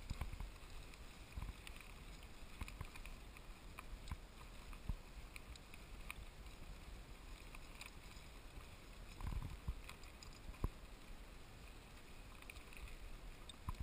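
Faint riding noise of a bicycle on a dirt trail: a low rumble from the tyres on the rough ground, scattered rattles and knocks, and a little wind on the microphone. A slightly louder rumble comes about nine seconds in.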